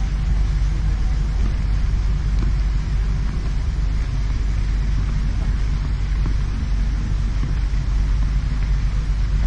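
Steady low rumble of outdoor background noise with a faint hiss over it.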